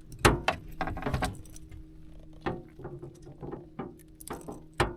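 Irregular clicks and light knocks, about a dozen, the loudest about a quarter second in and again just before the end, over a faint steady low hum.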